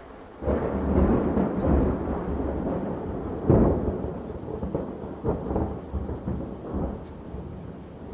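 Thunder: a rumble that swells suddenly about half a second in, a sharp crack a few seconds later, then rolling, crackling rumbles that fade away.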